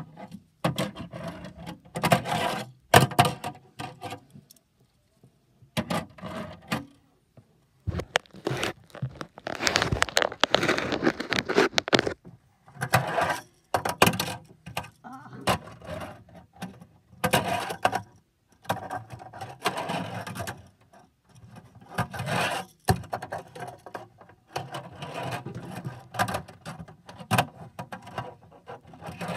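Tech Deck fingerboard rolling, scraping and clacking on plastic ramps and a wooden tabletop, in bursts with short pauses between, with sharp clacks where the board or ramp pieces hit.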